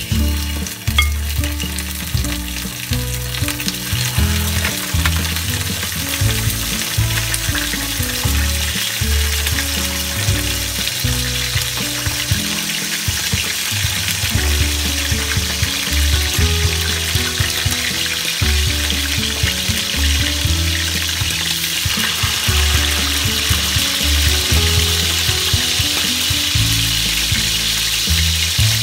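Marinated milkfish (bangus) belly pieces sizzling as they fry in hot oil in a stainless steel pan, the sizzle growing louder about three-quarters of the way through as more fish fills the pan.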